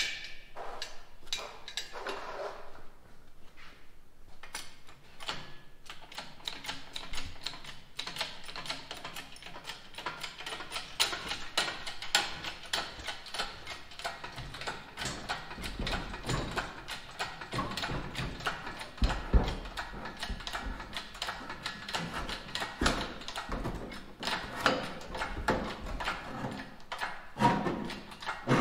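Mechanic's hand-tool work on a vehicle: a long run of quick clicks and light metal knocks, with some heavier low thuds about two-thirds of the way through.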